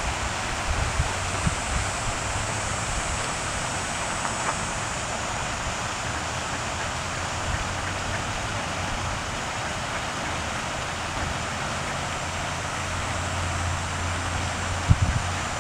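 Steady hiss of a lake fountain's spray falling onto the water, with a low steady hum underneath in the second half and a couple of brief thumps near the end.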